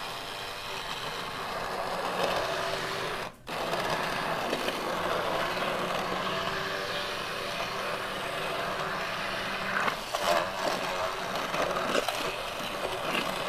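Hand-held immersion blender running in a pot of chunky cooked butternut squash soup, pureeing the squash in its stock. The motor cuts out briefly about three seconds in, then runs on steadily, with a few knocks near the end.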